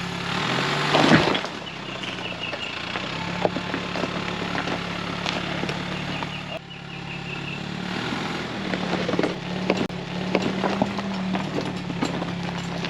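2024 Toyota Tacoma TRD Off-Road pickup crawling slowly over loose rocks in four-wheel-drive low, its engine running at low revs with the note rising and falling a few times. Rocks click and knock under the tyres throughout, with a louder burst of noise about a second in.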